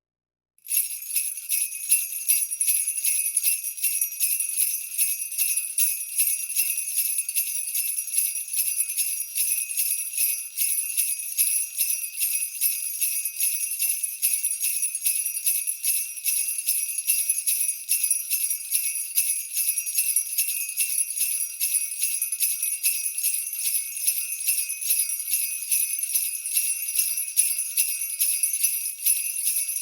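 Jingle bells shaken continuously in a dense, steady jingle, starting just under a second in.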